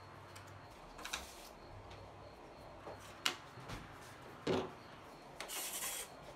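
Small hand tools being handled and set down on a stone tabletop: a few sharp clicks and a knock, then a brief scrape near the end.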